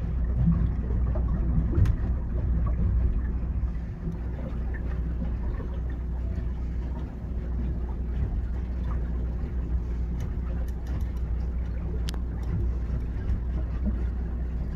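A boat's motor running steadily underway, a low even drone, with a couple of faint clicks.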